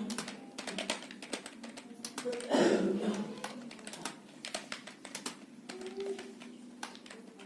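Computer keyboard keys being typed at an uneven pace, several clicks a second. A brief louder noise about two and a half seconds in.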